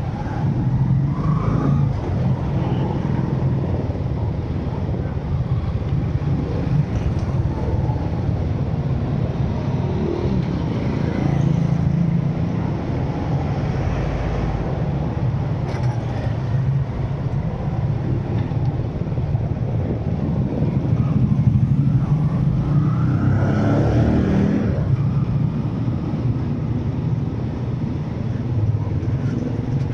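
A car driving on a town road: steady engine hum and road noise. A louder swell rises and fades between about 23 and 25 seconds in.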